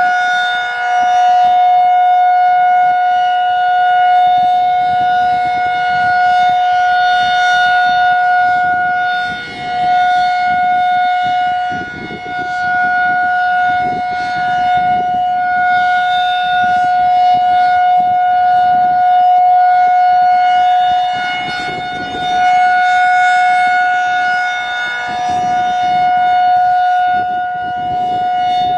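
Federal Signal 2001-SRN outdoor warning siren sounding the full-alert signal: one steady, unbroken high tone that swells and fades in loudness every few seconds as the siren head turns.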